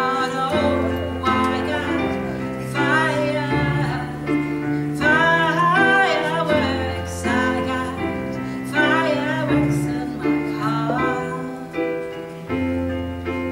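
Live pop ballad: a woman singing into a microphone, accompanied by sustained chords on a stage keyboard set to a piano sound, heard through a PA. The voice drops out near the end while the keyboard carries on.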